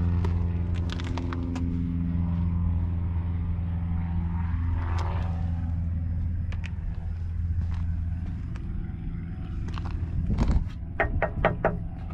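An engine idling with a steady low hum. Several sharp taps and clicks come near the end.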